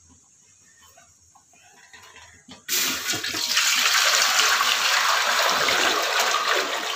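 Water poured in a steady stream into an empty metal cooking pot, starting suddenly about three seconds in.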